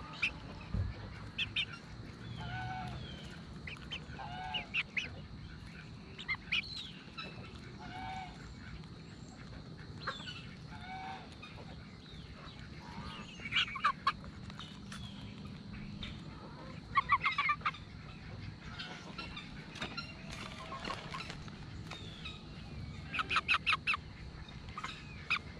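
Domestic geese honking in a few quick runs of calls, with softer clucking from chickens close by in between.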